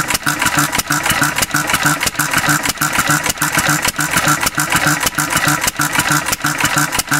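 Antique Cushman Cub single-cylinder four-stroke stationary engine running on 91% rubbing alcohol, with a steady, even exhaust beat, as the carburetor needle valve is being set for the mixture.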